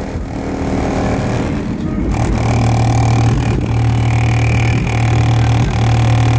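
Bass-heavy music played very loud through a JL Audio W7 13-inch subwoofer in a car, heard from just outside the car body: a deep, steady bass tone broken briefly about every second.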